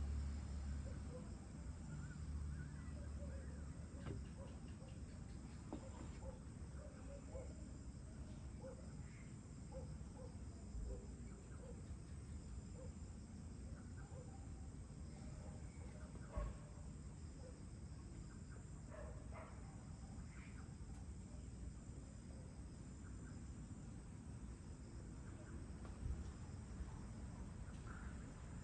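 Faint evening insect chorus: crickets trilling steadily at a high pitch over a low rumble. A run of short, low-pitched chirping calls repeats through the first ten seconds or so, and there are two brief knocks, one about midway and one near the end.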